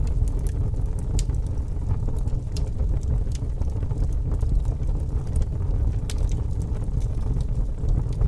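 Wood fire burning in a fireplace: a steady low rumble of the flames with scattered sharp crackles and pops.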